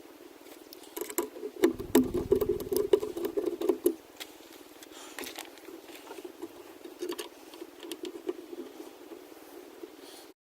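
Light clicks, taps and small rattles of parts and tools being handled, with a busier stretch of louder knocks and rumble between about one and a half and four seconds in.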